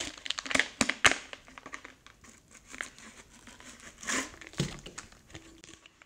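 Plastic bags crinkling as plastic-wrapped kit is shaken and pulled out of a bike tool storage bottle, with a burst of sharp clicks and rustles in the first second, then lighter crinkling and one more rustle about four seconds in.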